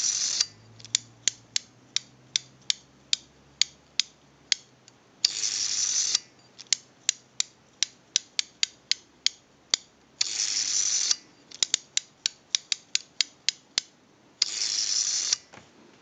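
Automatic Electric candlestick telephone's rotary dial being dialled over and over: runs of sharp ratchet clicks, about two or three a second, as the finger wheel is wound off, alternating with a whirring rush of about a second as it spins back under its governor. The ratcheting shows that the dial's ratchet key and spring are working properly.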